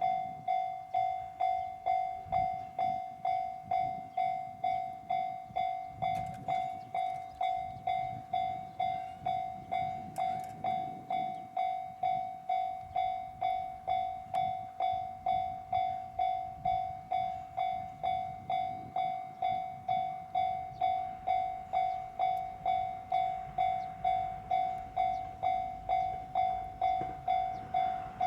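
Japanese level-crossing warning bell ringing steadily, an even clanging of about two strokes a second, each stroke dying away quickly. It is the crossing's alarm that a train is approaching.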